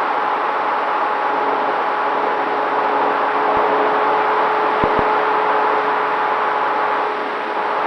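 Dynam T-28 Trojan RC plane in flight, heard from its onboard camera: a steady rush of airflow with the even hum of its electric motor and propeller running through it.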